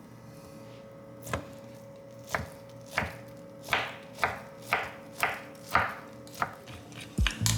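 A kitchen knife chopping on a cutting board, about ten separate strokes at roughly two a second, coming closer together as it goes. Near the end, kitchenware clatters.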